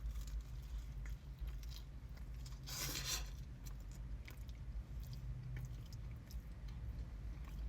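A person biting into and chewing a meatball sub, with small mouth clicks and a louder crunchy bite or rustle about three seconds in, over a steady low hum.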